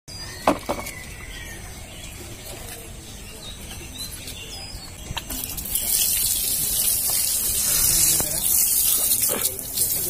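Water jet from a hose spraying onto a motorcycle wheel and the wet ground, a loud hissing spray that starts about five seconds in. Before it there is a single sharp click about half a second in, over quieter low noise.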